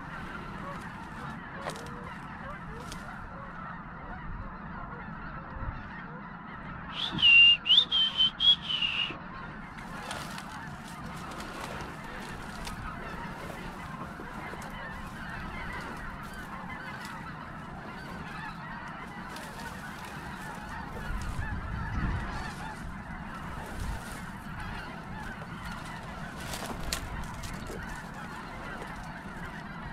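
A large flock of snow geese calling, a steady din of many overlapping honks. About seven seconds in, a closer bird gives a quick run of loud, high calls lasting a couple of seconds.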